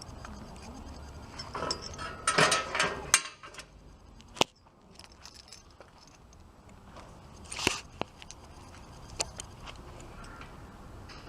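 Metal bicycle parts being handled: scattered clinks and knocks, with a busier rattle about two to three seconds in and single sharp knocks after it.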